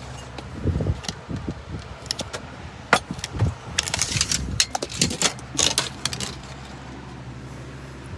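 Irregular metallic clinks, clicks and rattles of tools or gear being handled for several seconds, over a steady low hum.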